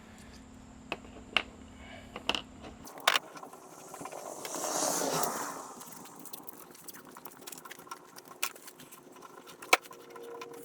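Scattered sharp clicks and light metallic rattles of stainless bolts and washers being handled. A brief rushing swell about halfway through.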